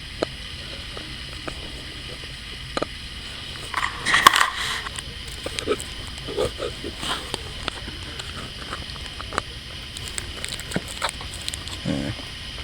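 Scattered small plastic clicks and taps from handling a plastic figurine and its display stand, with a short rustle about four seconds in.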